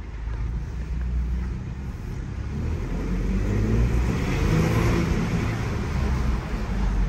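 Ford Bronco's 2.7-liter twin-turbo EcoBoost engine and tyres on wet pavement, heard from inside the cabin as it drives. The engine note comes up and grows louder from about halfway through.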